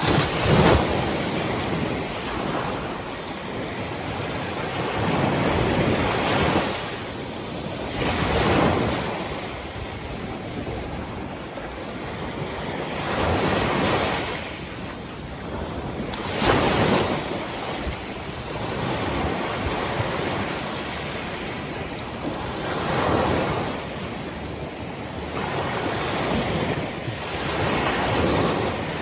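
Ocean surf breaking on a beach: a wave swells and crashes every few seconds over a continuous hiss of water.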